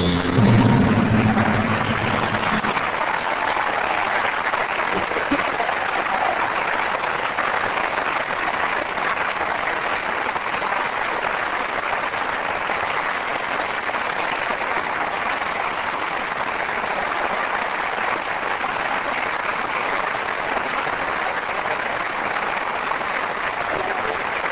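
The band's last chord dies away in the first two seconds, then a large audience applauds steadily.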